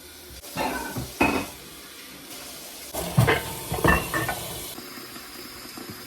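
Dishes being washed at a kitchen sink: a steady hiss of running water with clinks and knocks of plates and cutlery, the loudest about three and four seconds in.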